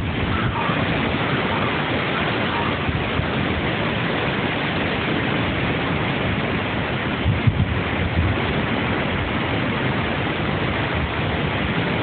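Typhoon wind: a steady rush of noise, with gusts buffeting the microphone, the strongest about seven and a half seconds in.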